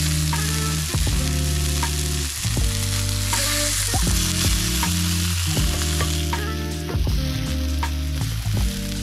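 Sea trout fillets sizzling in hot oil in a nonstick frying pan, with a few clicks as a spatula lifts them out. Low sustained background-music notes change about once a second underneath.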